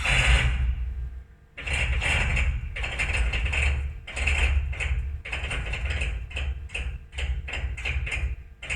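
Haas CNC mill's Z axis jogging up and down in a series of short moves, each move a low rumble with fast clicking and vibration. The clicking appeared after the spindle crashed into the tool magazine; the owner suspects the Z-axis motor brake, a servo motor bearing, the thrust bearing or the ball nut.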